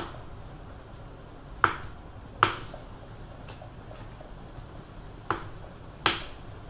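Chef's knife blade knocking on a cutting board as it cuts through firm tofu: five sharp knocks, two close pairs with a pause of about three seconds between them.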